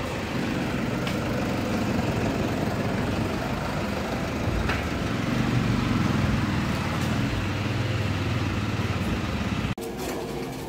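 Toyota Fortuner's engine idling steadily close by, a low even drone. It cuts off abruptly near the end.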